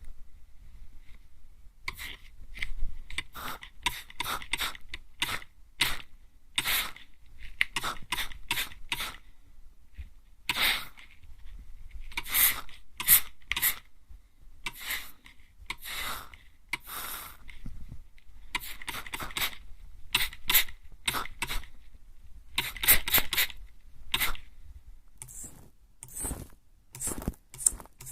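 Handheld mist spray bottle (atomizer) sprayed close up at the ear: many short hissing spritzes, often in quick runs of two to four, with short pauses between runs.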